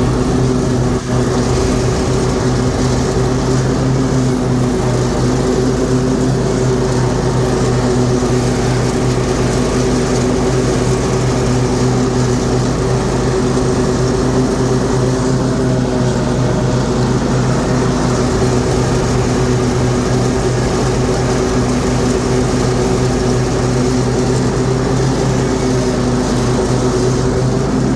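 Troy-Bilt Mustang zero-turn mower's 25-horsepower Kohler V-twin running steadily at throttle while the mower drives. It runs smoothly, with a brief dip about a second in.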